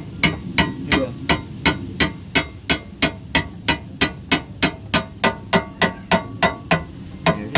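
Hammer blows in a steady, even rhythm, about three a second, with some twenty strikes in a row.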